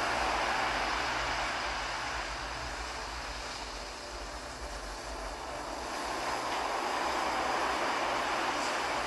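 Ocean surf: a steady wash of breaking waves that eases off about four seconds in and swells again as the next wave comes in.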